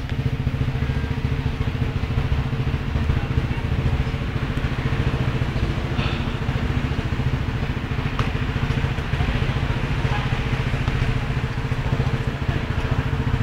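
An engine idling steadily: a low, even hum with a fast throb.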